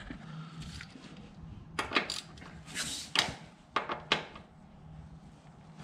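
Scattered light metallic clicks and knocks of a 3/8-inch ratchet and 17 mm socket being handled and fitted onto a cap on a Honda VTX 1300's final drive housing, over a faint steady hum.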